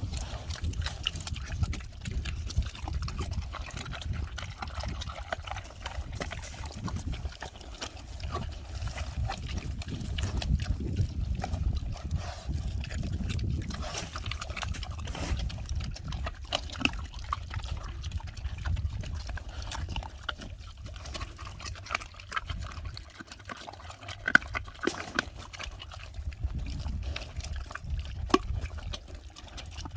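Pigs eating fruit and vegetables: noisy chewing with many irregular smacks and clicks, over a steady low rumble.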